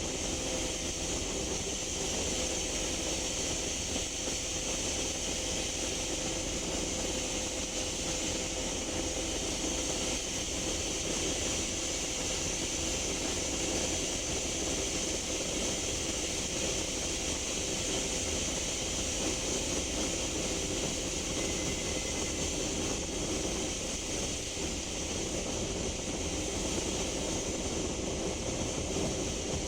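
Interior of a Scania K310UB bus running at steady speed, its 5-cylinder Scania DC9 engine giving a low rumble and a steady hum under a constant high whooshing hiss. The owner hears the whoosh only under acceleration and doesn't know its cause; it sounds unlike a broken turbocharger.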